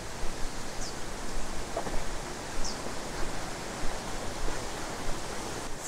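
Rain-swollen river rushing over a low-water ford crossing, a steady hiss of flowing water; a bird chirps faintly twice.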